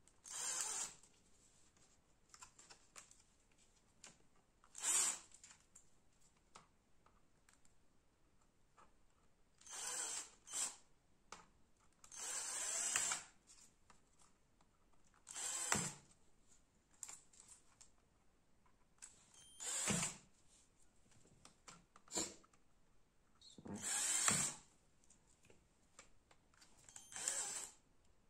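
Power drill with a small bit, run in about nine short bursts a few seconds apart, drilling out the plastic rivets that hold a laptop keyboard to its top cover.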